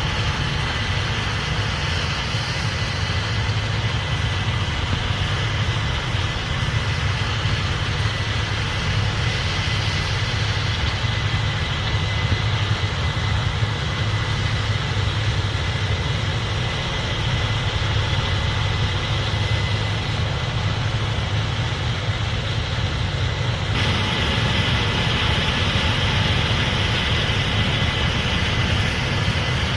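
Case IH 8250 Axial-Flow combine running steadily while harvesting corn: a deep engine hum with a faint steady whine. About 24 seconds in the sound shifts abruptly to a brighter, hissier mix.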